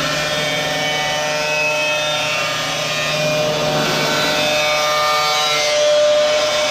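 Cutoff wheel grinding into 1/16-inch stainless steel sheet, scoring it about halfway through so it can be bent by hand. The steady grinding runs without a break and gets slightly louder near the end.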